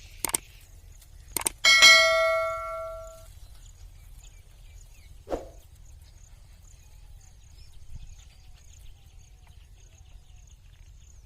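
Two sharp knocks, then a metal clang that rings out and fades over about a second and a half; one more dull knock follows a few seconds later.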